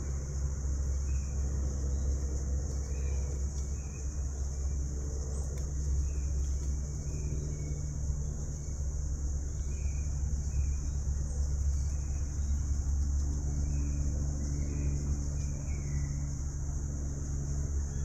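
Steady low rumble of distant road traffic, under a steady high-pitched hiss and faint short chirps about once a second.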